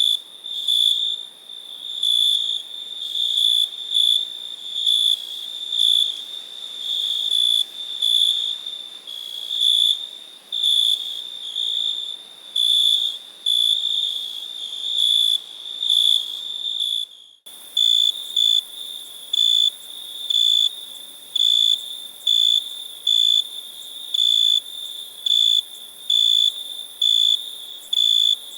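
Cricket chirping: a high, pure-toned trill pulsed in regular chirps about one and a half a second. About seventeen seconds in the sound drops out for a moment, and after that the chirps are shorter and crisper.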